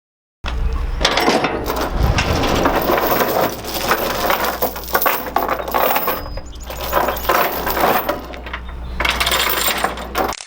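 Bobcat 743 skid steer running, a steady low engine drone under continual metallic clanking and rattling.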